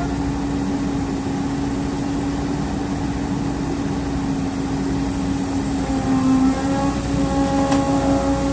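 JCB excavator's diesel engine running steadily with a held hum. About six seconds in, several higher tones join and the hum begins to pulse.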